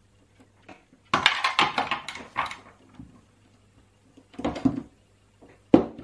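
Clattering and sharp knocks of small hard parts handled on a workbench: a small circuit board being worked out of the clips of a PCB holder and set down. A burst of rattling clicks comes early, a few knocks come in the middle, and one sharp knock comes near the end.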